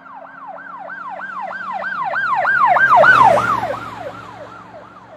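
Emergency vehicle siren in a fast yelp, about three sweeps a second, passing by: it swells to its loudest about three seconds in, drops slightly in pitch and fades, with the vehicle's engine and road noise underneath.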